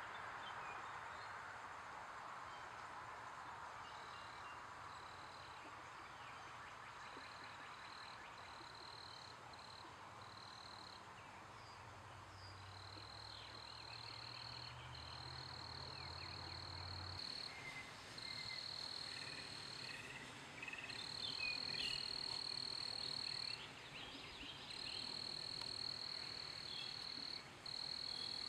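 Outdoor chorus of calling animals: repeated high trills, each a second or two long, that grow louder about halfway through, with a few short chirps in between. A faint low hum sits under the middle part.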